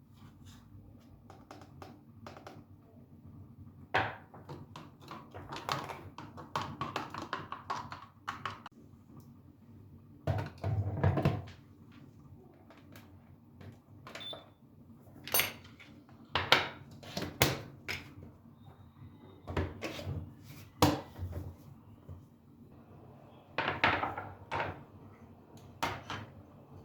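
Household kitchen work: dishes and cupboard doors being handled, giving irregular knocks, clicks and short clatters, with a few louder knocks scattered through.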